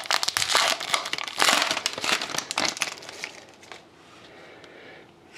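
Hockey card pack wrapper being torn open and crinkled: dense crackling for about four seconds, then dying down to faint rustling.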